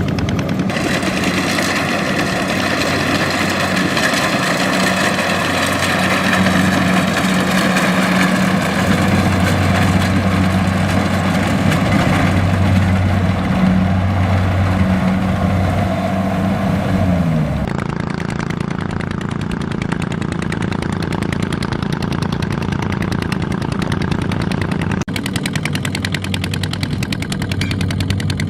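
Rice-harvesting machine's engine running steadily with a whining hum. About two-thirds of the way through, its pitch falls and the sound turns duller as it runs on.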